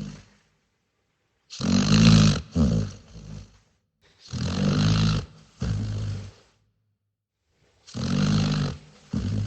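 Dog snoring in its sleep: three snores about three seconds apart, each a long breath of about a second followed by a shorter one, with silence in between.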